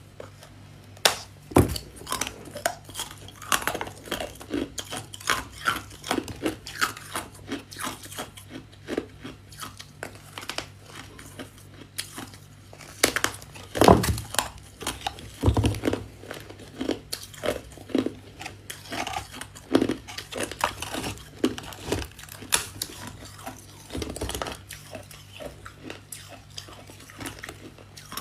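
Freezer frost being chewed close to the microphone: irregular crunches and crackles, with a louder crunching bite about halfway through, over a steady low hum.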